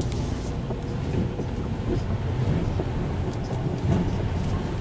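Car driving along a road, heard from inside the cabin: a steady low rumble of engine and tyres, with a few faint ticks now and then.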